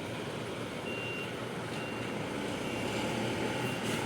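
Steady background din of a sound-system and stage setup site, with a few short, faint high-pitched beeps.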